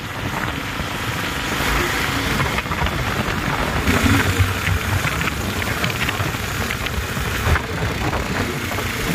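Motorcycle running at road speed, its engine rumble mixed with wind rushing over the microphone.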